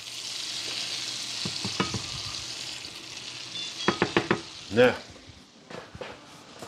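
A lemon-juice mixture sizzling in a hot skillet as it is stirred with a silicone spatula, with a quick run of sharp clicks about four seconds in. The sizzle drops away about five seconds in.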